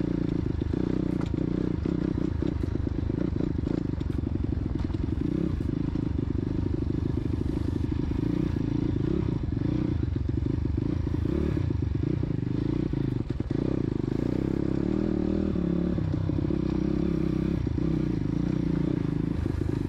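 Single-cylinder four-stroke 140 cc pit bike engine with a Scalvini racing exhaust, running at low, fairly steady revs as the bike is ridden slowly to warm up. The carburettor is set with a 112 main jet, which the rider suspects runs too rich.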